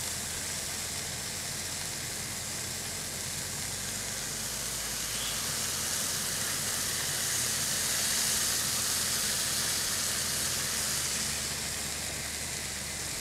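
Marinated chicken breast fillets frying in a hot non-stick pan in the olive oil of their marinade: a steady sizzling hiss that swells a little about halfway through.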